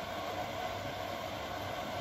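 Siemens Siwamat Perfecta SL washing machine running steadily on a delicates wash, a constant hum and whir with no change across the two seconds.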